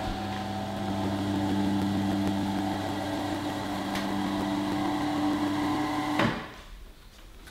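Two-post car lift's electric hydraulic pump motor running with a steady hum as it raises a car, cutting off about six seconds in.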